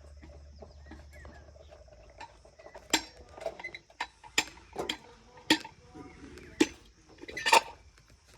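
A run of sharp clinks and knocks, roughly one a second, starting about three seconds in, the loudest near the end.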